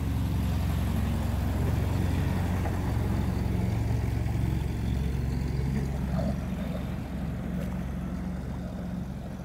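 Boat engine running steadily close by, a low even drone over churning water, easing off a little near the end.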